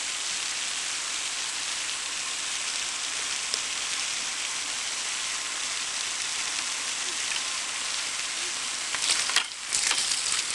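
Steady high-pitched hiss, with irregular rustling and knocks near the end.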